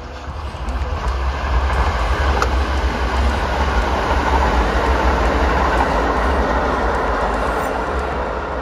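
Kintetsu Osaka Line electric train passing over a steel girder railway bridge: a loud, steady rumble of wheels on rails with a heavy low component. It swells over the first second and eases slightly near the end.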